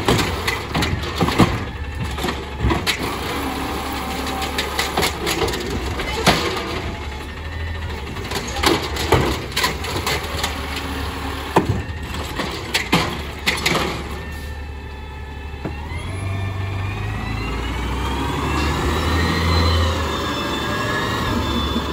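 Natural-gas automated side-loader garbage truck idling while its arm lifts and tips a trash cart, giving a string of knocks and bangs as the cart and trash hit the hopper. From about fifteen seconds in, the knocking stops and a whine rises and falls as the truck pulls away.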